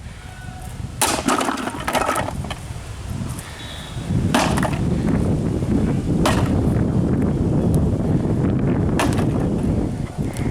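Hard blows smashing old electronics, about five sharp cracking hits spaced a second or two apart. A steady low rumble of wind on the microphone sets in about four seconds in.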